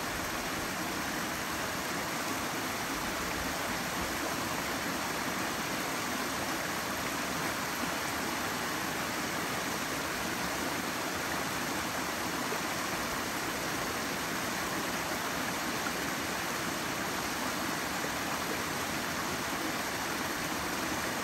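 Fast-flowing mountain creek rushing steadily beneath a footbridge, an even, unbroken rush of water.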